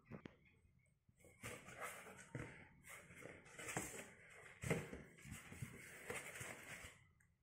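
Faint rustling and scraping of a corrugated cardboard shipping box as its flaps are opened and pulled back, with a few light cardboard knocks. It starts after about a second.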